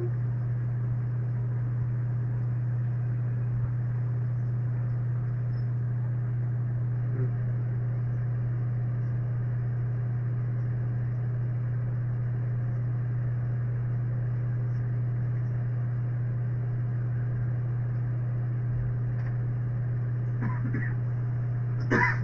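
Steady low hum, with a crow cawing a couple of times near the end.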